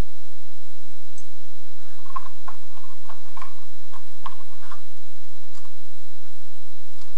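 A few faint, irregular clicks and light taps as a small cardboard box and a metal ring are handled, bunched between about two and five seconds in.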